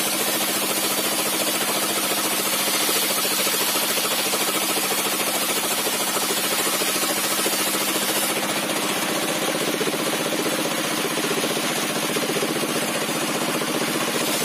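Sawmill bench with a 60 cm zigzag-toothed circular saw blade running steadily as timber is fed through it. A high hiss drops away about eight seconds in.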